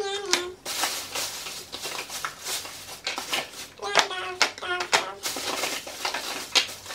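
Small cardboard boxes of bar soap being handled and stacked on a wooden table: a run of light taps, knocks and scuffs as boxes are picked up and set down. A brief murmured voice is heard at the start and twice a little past the middle.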